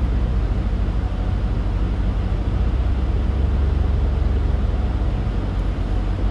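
Steady road and engine rumble inside a moving vehicle's cabin, with tyre hiss from a wet road.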